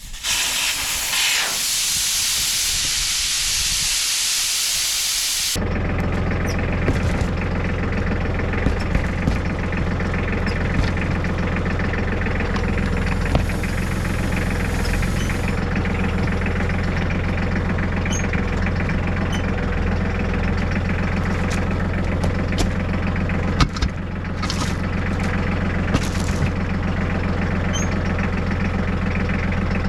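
Air hissing loudly for about five seconds, then a motor starts abruptly and runs steadily, with a short burst of hiss again about halfway through.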